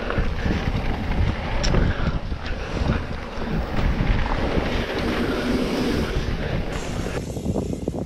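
Wind buffeting the microphone of a bike-mounted camera as a mountain bike rolls fast down a dirt trail, with a steady rumble from the tyres and frame and frequent knocks and rattles over bumps.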